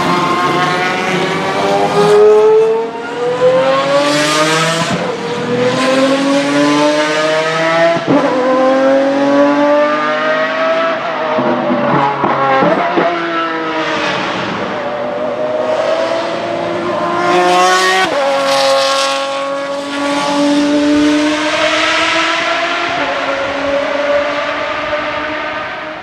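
Pagani Zonda Revolución's 6.0-litre Mercedes-AMG V12 at full throttle, its pitch climbing and dropping back again and again as it accelerates hard and shifts up through the gears. It fades away near the end.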